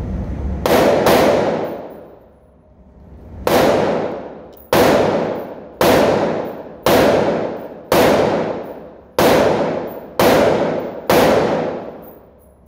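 Ten gunshots at a shooting range, each a sharp report ringing out for about a second. Two come in quick succession about a second in, then after a pause eight more follow at roughly one-second intervals.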